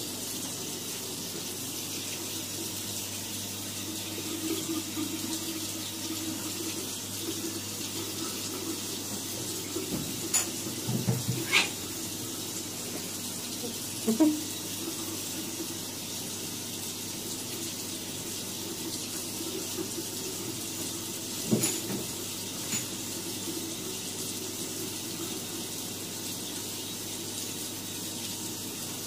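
A steady hiss underneath, with a handful of short knocks and thumps from cats scrambling in a bathtub: a cluster about a third of the way in, one at about half way, and two more about three quarters in.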